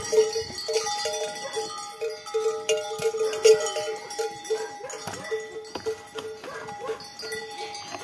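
Cowbells clanking irregularly on grazing cows: a string of uneven metallic rings.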